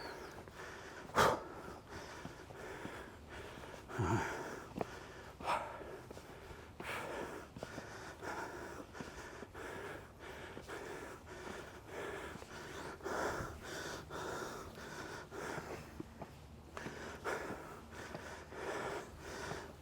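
Heavy, laboured breathing of a hiker climbing a steep trail, breaths coming every second or two, with an occasional sharp click.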